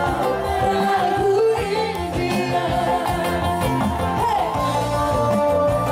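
Live band music played loud over a sound system, with a held, wavering sung melody over a steady repeating bass line.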